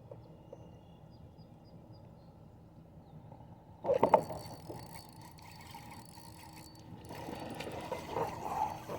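Fishing reel being cranked while a hooked bass is played in, with a sudden loud burst of knocks about four seconds in and more rattling handling noise near the end.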